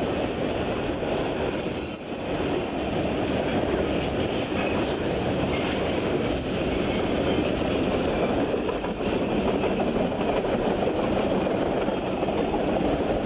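Container wagons of a freight train rolling past close by: steady noise of steel wheels on the rails, with a brief dip about two seconds in and short faint high squeals now and then.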